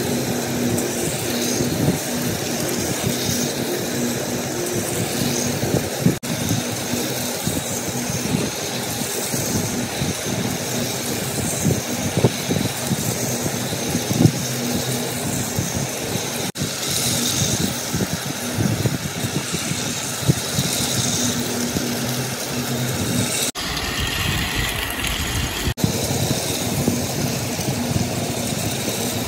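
Battery-powered toy trains running on plastic track: small electric motors whirring steadily while the wheels click and rattle over the track.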